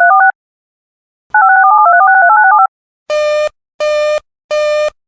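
Two rapid strings of touch-tone (DTMF) telephone tones, the first ending just in and the second running from about a second in to nearly three seconds. Then a repeating beep, about three beeps every two seconds.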